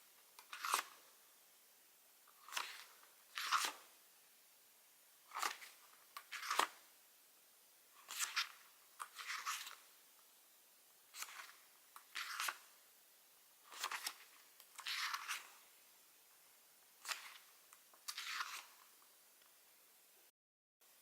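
Paper pages of a diary being turned one after another, each turn a short rustle, about a dozen in all, roughly one every second or so; the sound drops out briefly near the end.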